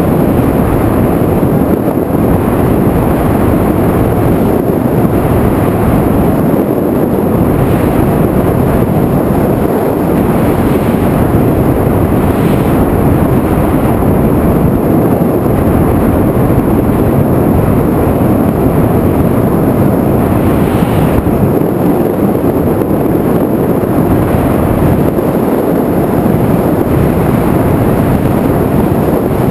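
Loud, steady rush of wind over the onboard camera microphone of an FPV aircraft in flight, with no distinct motor tone standing out.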